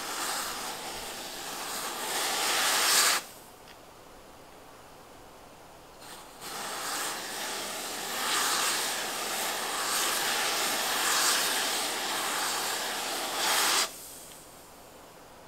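Aerosol freeze spray hissing out of its straw nozzle in two bursts: the first about three seconds long, then after a pause of about three seconds a longer one of about seven and a half seconds. Each stops sharply.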